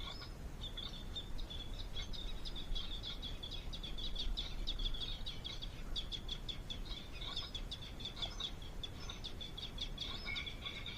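Small birds twittering: a dense, continuous run of short high-pitched chirps, over a steady low background rumble.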